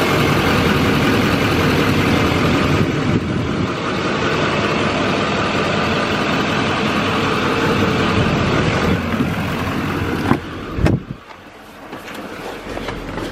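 A 6.6 Duramax V8 turbodiesel running at idle, heard loud and steady from underneath the truck. About eleven seconds in there is a single knock, and the engine sound then drops to a much quieter level.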